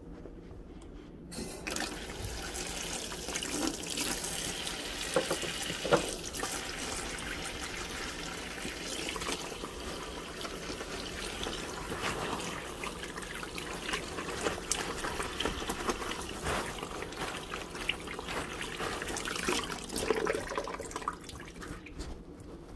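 Kitchen sink faucet running, with water splashing over hands as they are rinsed and rubbed under the stream. The water comes on about a second in and is shut off near the end.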